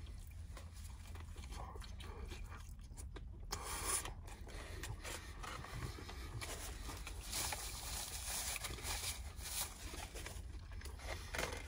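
Close-up chewing of a mouthful of burger, with soft irregular wet crackles, over a low steady hum.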